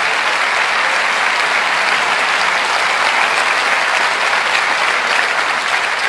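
Large auditorium audience applauding steadily.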